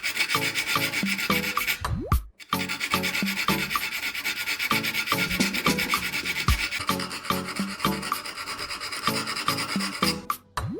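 Continuous abrasive rasping, a file or abrasive worked against metal, over background music with a steady beat; the sound breaks off briefly about two seconds in.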